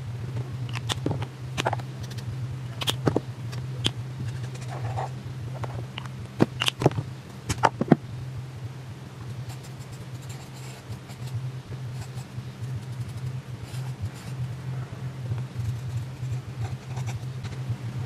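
Ohuhu alcohol marker brush tip stroking and scratching across sketchbook paper as it colours in. In the first half there is a string of sharp clicks and knocks as the markers are picked up and handled, all over a steady low hum.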